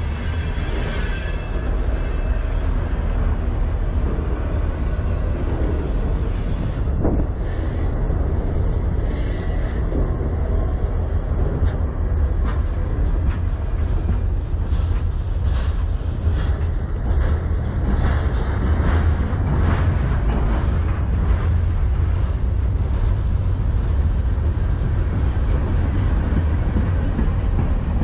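Freight train cars rolling past close by: a steady low rumble of steel wheels on the rails, with repeated clicks and clanks from the passing wheel sets. A faint high wheel squeal runs for several seconds in the middle.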